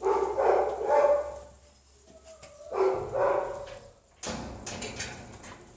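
A dog giving two drawn-out, bark-like calls, one right at the start and one about three seconds in, followed by a sharp knock just after four seconds.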